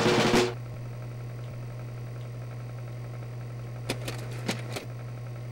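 A noisy spluttering spray, a mouthful of rice spat out, ending about half a second in. Then a steady low hum, with a few light clicks around four seconds in.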